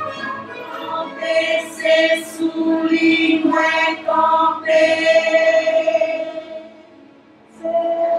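A choir of mothers singing together in long held notes. The singing fades out about six and a half seconds in, and a new phrase comes in near the end.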